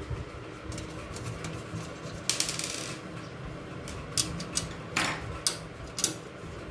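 Scattered light metallic clicks and taps, with a short rattling scrape about two and a half seconds in and another about five seconds in: motherboard standoff posts being fitted by hand into the steel motherboard tray of a desktop PC case.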